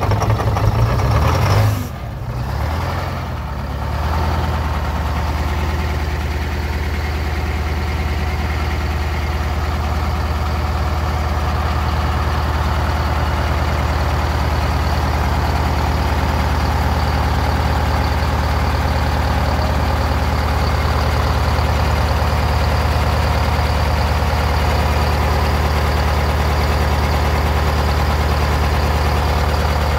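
Detroit Diesel 8V71 two-stroke V8 diesel running just after a cold start: the revs drop about two seconds in, and it settles into a steady low idle while blowing white smoke from the exhaust.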